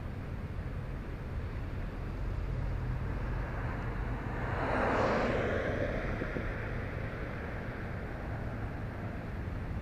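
A vehicle passes by on the road. Its noise swells to a peak about five seconds in and then fades, over a steady low rumble.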